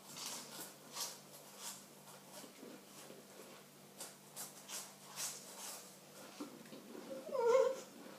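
Chewing and crunching of dry crackers with full mouths, in soft irregular strokes, with breathing through the nose. About seven seconds in comes a short muffled vocal sound through a full mouth.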